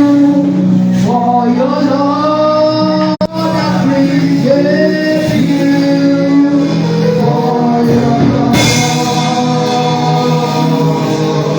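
Gospel music: sung voices holding long notes over a steady accompaniment, with a brief dropout in the sound about three seconds in.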